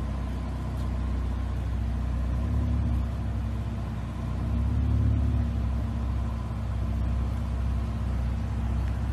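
Car engine running at low revs under load as one car tows another out of soft sand on a strap, the rumble swelling briefly twice, about two and a half and five seconds in.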